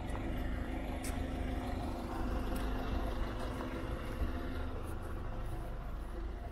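A motor vehicle's engine running steadily with a low rumble and hum, fading a little near the end.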